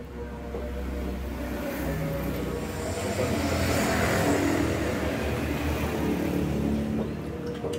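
A motor vehicle's engine passing close by, rumbling louder to a peak about halfway through and then fading.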